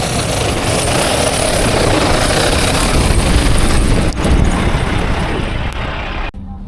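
Blizzard wind blasting across the microphone, a loud, rough rushing roar with a heavy low rumble. Near the end it cuts off abruptly, leaving a quieter steady low hum.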